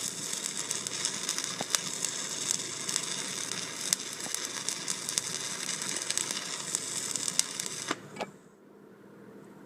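Stick-welding arc from a 1/8-inch 7018 rod at about 120 amps on a vertical fillet weld: a steady crackle and sizzle with frequent sharp pops, until the arc is broken near the end and the sound cuts off.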